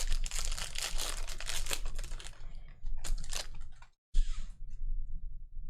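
Trading-card pack wrappers being torn open and crinkled, a long stretch of crackly tearing with a brief break about four seconds in, then more crinkling.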